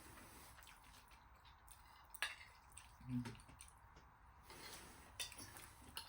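Quiet eating sounds: cutlery clicking sharply against a plate a few times, the loudest about two seconds in, with soft wet mouth noises and a brief low thump about three seconds in.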